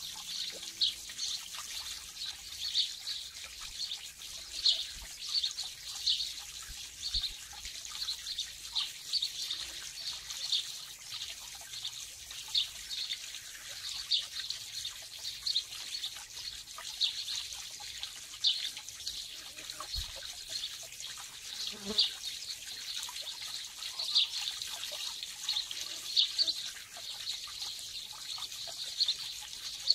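Outdoor ambience: many short, high chirps, irregularly spaced, over a faint steady hiss, with a soft low bump about twenty seconds in.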